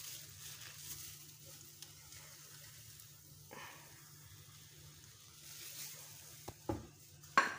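Oil sizzling faintly in an emptied non-stick frying pan on a low gas flame, with a few brief knocks near the end, the last the loudest.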